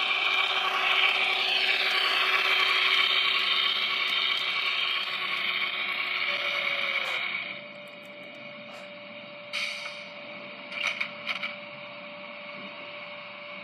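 HO-scale model electric train running along the track, its motor whining and wheels rolling on the rails, then slowing and stopping about seven and a half seconds in. A quieter steady hum with one held tone and a few short sounds follows.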